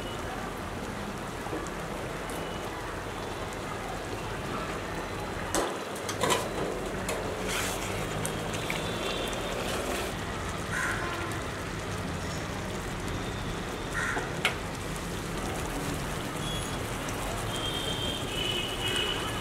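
Thick chicken curry simmering in a cast iron pan: a steady bubbling, crackling hiss. A few sharp clicks of the spoon against the pan come about six seconds in and again around fourteen seconds.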